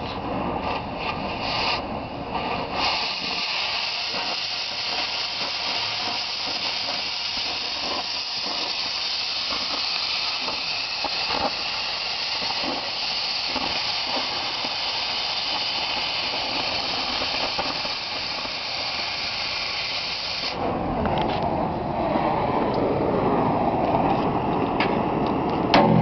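Oxy-acetylene cutting torch on a steel backhoe bucket tooth: the flame rushes steadily, then about three seconds in a loud, steady high hiss starts as the cutting oxygen jet blows through the hot metal. The hiss stops suddenly about twenty seconds in, leaving the lower rush of the heating flame.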